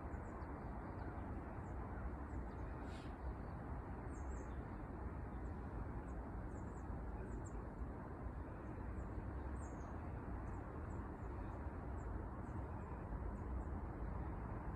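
Forest ambience at dawn: a steady low rushing background with faint, high chirps of small birds scattered throughout, a little louder about four seconds in and again near ten seconds.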